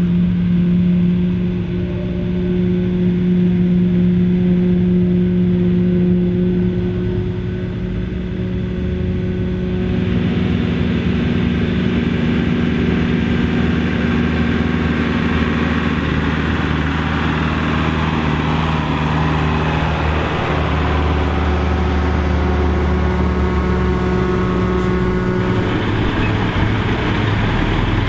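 Mercedes-Benz MB Trac 800 tractor's diesel engine running steadily at working speed. About ten seconds in, a louder, noisier machinery layer joins over the engine hum.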